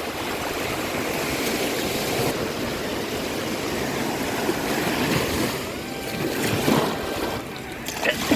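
Sea surf washing and breaking on a beach: a steady rushing of waves. A brief high voice sounds near the end.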